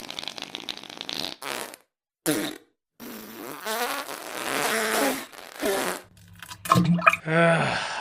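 A fart sound effect: several separate farts of varying length, some pitched and wavering, with short gaps between them.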